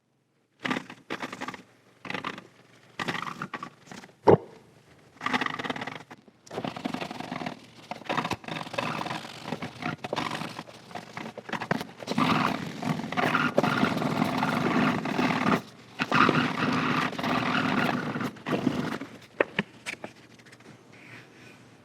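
Microfiber cloth rubbing paste wax into a cast iron band saw table: short, separate strokes at first, then steady buffing from about six seconds in. There is one sharp knock about four seconds in.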